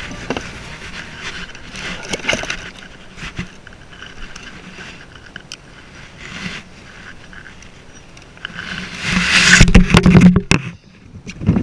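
Cloth rubbing and brushing against a body-worn action camera's microphone while an angler reels, with faint scattered clicks. Near the end it grows loud, with heavy rubbing and knocks as the shirt presses over the camera.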